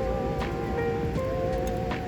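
Background music with a slow melody of held, slightly wavering notes, over a steady noisy bed with a few sharp clicks.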